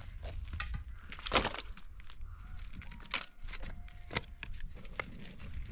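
Dry firewood sticks laid and knocked against the stones of an open hearth, giving a few sharp wooden clacks and scrapes.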